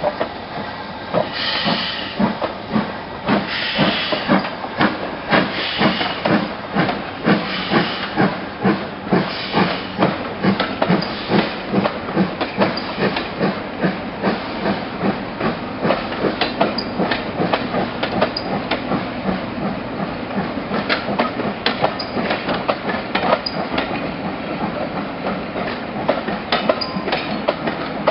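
LMS Black 5 4-6-0 steam locomotive working past with steam hissing and regular exhaust beats, about one and a half a second. The beats fade about halfway through. Its coaches then roll by, wheels clicking and clattering over the rail joints.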